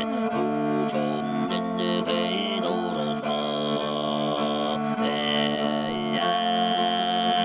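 Music with sustained chords of long held tones and a few short sliding notes.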